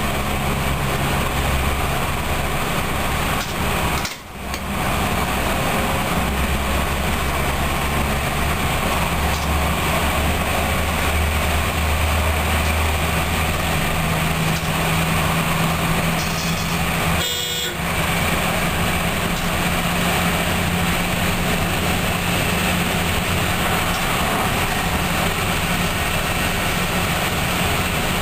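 Train running along the track, heard from the driver's cab: a steady engine drone over rolling noise, with a brief cut in the sound twice, about four seconds in and again near the middle.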